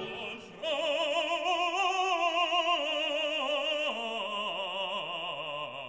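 Background music: a classical, opera-style piece with a voice singing long notes with heavy vibrato.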